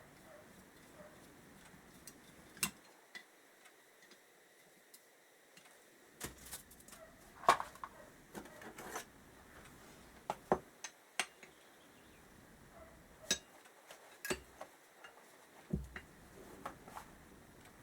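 Scattered light clicks and clinks of small metal carburettor parts and hand tools being handled and set down during reassembly, with a busier run of them from about six to nine seconds in.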